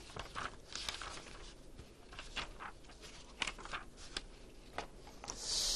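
Faint rustling and small clicks of papers being handled and leafed through, with a short hiss near the end.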